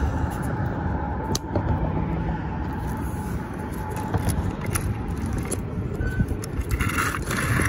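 Wind buffeting the camera's microphone, a steady low rumble, with scattered clicks of handling and a short rasp near the end.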